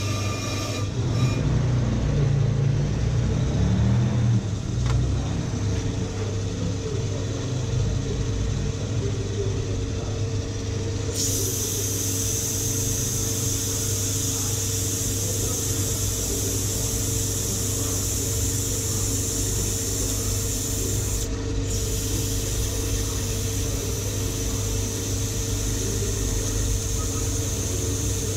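Ammco 4000 brake lathe running as it skims a brake rotor, with a steady motor hum. About a third of the way in a steady high hiss joins, dropping out briefly once near the end.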